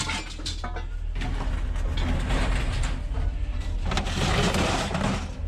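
Scrap metal scraping and clattering as pieces are dragged out and unloaded, with a few sharp clicks near the start and two longer scrapes later on, over a steady low hum.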